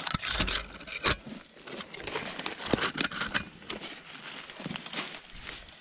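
Branches and brush rustling and scraping against a hiker and body-worn camera while pushing through dense overgrowth, with footsteps crunching on dry leaves and twigs: an irregular run of crackles and swishes, with a sharp snap about a second in.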